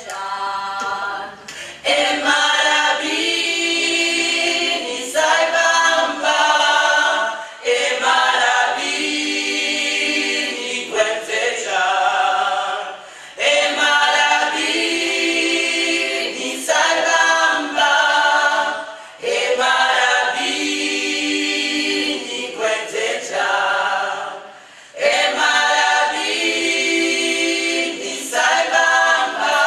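Gospel choir of mixed male and female voices singing a cappella in harmony, with no instruments. The singing comes in phrases of about six seconds, each followed by a short break.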